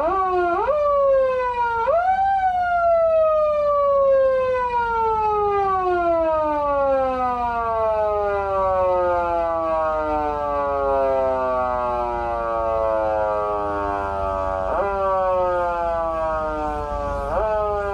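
Foot siren from a Patlite SAP-500BK-PV siren amplifier: a wind-up siren wail whose pitch jumps up sharply twice in the first two seconds, then slowly winds down for about twelve seconds, and rises sharply again about fifteen seconds in and once more near the end.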